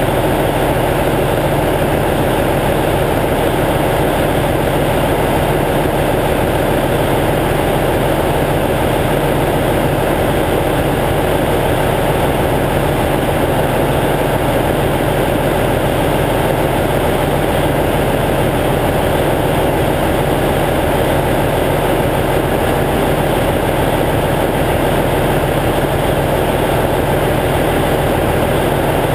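Cummins N14 inline-six diesel in a semi tractor idling steadily, warming up after a cold start.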